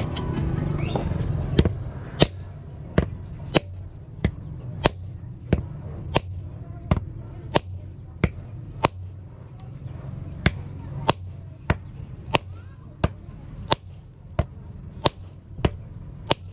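A small sledgehammer head striking a steel rod laid over an old claw hammer used as an anvil, shaping the rod for a pole spear. It gives sharp metal-on-metal blows at an even pace of about three every two seconds, each with a short high ring, starting about a second and a half in.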